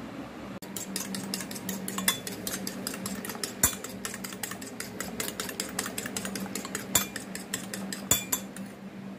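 Eggs being beaten in a shallow ceramic bowl, the utensil clicking quickly and rhythmically against the bowl several times a second, starting about half a second in and stopping near the end. A steady low hum runs underneath.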